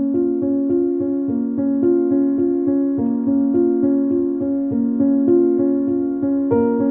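Background music with a steady run of pitched notes, about three a second.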